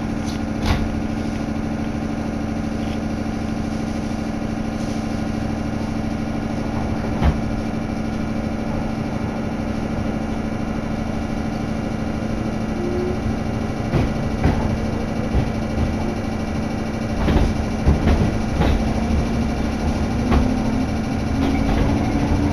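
Electric commuter train hums steadily while standing. Near the end it starts to pull away with a rising motor whine and a few knocks.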